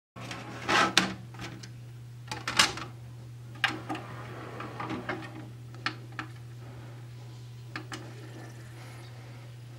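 Scattered clicks and knocks of a home hi-fi stack's CD tray being loaded and its front-panel buttons pressed, over a steady low hum.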